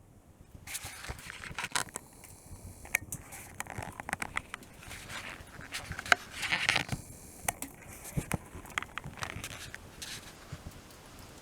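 Dry kindling and twigs being handled and arranged: irregular rustling and scraping with many sharp snaps and clicks, and a louder scraping burst a little past the middle.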